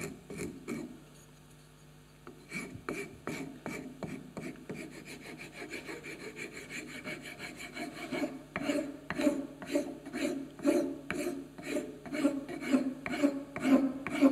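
Four-in-hand rasp, its smooth file side, stroked over the pine handle of a wooden spatula. Short, even rasping strokes, light at first and then louder at about two a second, smoothing off the ridges left by the spokeshave.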